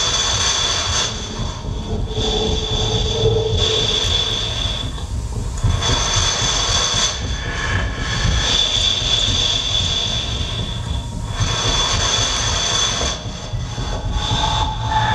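Experimental electronic music built from processed, amplified body sounds: a dense low rumble under high steady tones that cut in and out every second or two. Near the end two new lower tones come in.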